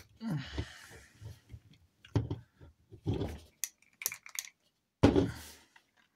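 A plastic action figure being handled and moved about, with rubbing and a few sharp clicks of its joints around the middle.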